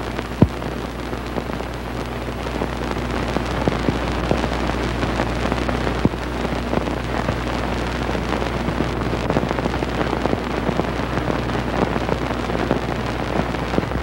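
Crackle and hiss of a worn old film print's soundtrack over a steady low hum. There is a sharp pop about half a second in and another about six seconds in.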